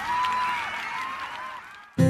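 Crowd cheering and whooping over a clapping, crackling haze, fading out near the end.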